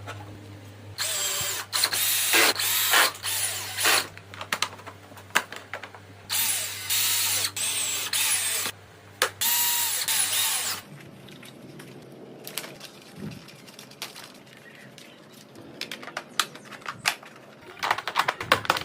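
Handheld electric drill running in three loud bursts of a few seconds each, its motor pitch rising and falling as the trigger is worked, followed by scattered clicks and rattles of tools and parts being handled.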